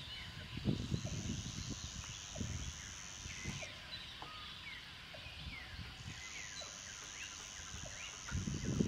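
Birds calling and chirping around a lakeshore, over a high steady buzz that stops for a couple of seconds midway. Dull low thumps and rustling from gear being handled on a bass boat's deck and hatch are loudest about a second in and again near the end.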